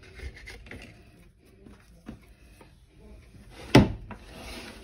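Hands pressing and trimming raw pizza dough on a metal baking tray with a kitchen knife, with soft rubbing and small clicks. A sharp knock about three-quarters of the way through, followed by a short scrape.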